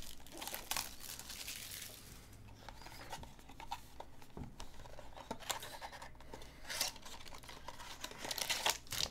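Plastic shrink-wrap crinkling and tearing as it is pulled off a 2019 Topps Triple Threads baseball card box, with cardboard being handled as the box is opened near the end. The crinkles come in uneven bursts.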